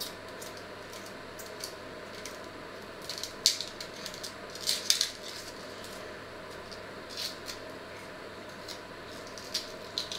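Dry onion skins crackling and rustling as an onion is peeled with a small knife, in short clusters of crisp clicks, the loudest about three and a half and five seconds in and again near the end, over a steady low hum.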